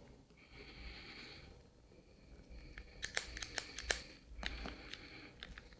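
Small hand-squeezed bar clamp being fitted and tightened over a glued seam: a soft rubbing hiss, then a quick run of sharp ratcheting clicks about halfway through, with a few more clicks shortly after.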